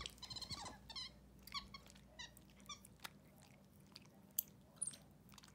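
White-faced capuchin monkey licking and biting a hard lollipop: faint wet smacking and mouth clicks, with a few short high squeaks in the first three seconds.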